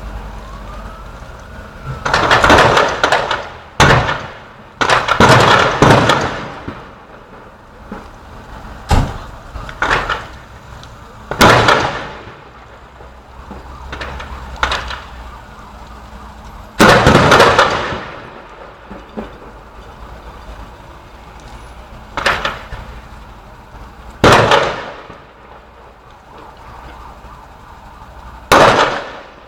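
A string of about a dozen loud explosions at irregular intervals, some in quick clusters, each echoing and dying away over a second or so. A siren wails faintly near the start, rising and falling.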